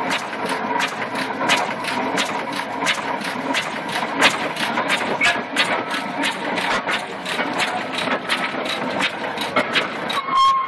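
Road roller's engine running steadily with an even beat of sharp knocks, about three a second. A short high tone sounds near the end.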